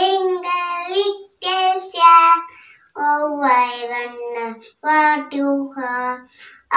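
A young girl singing unaccompanied, in short phrases separated by brief pauses.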